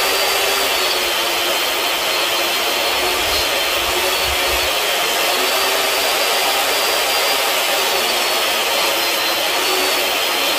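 DeWalt portable table saw running steadily, a motor whine over the blade noise, as pine 2x4s are run through it to cut a quarter-inch groove.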